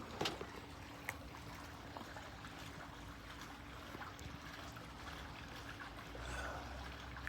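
Faint steady background noise with a few light clicks near the start and a slight swell near the end.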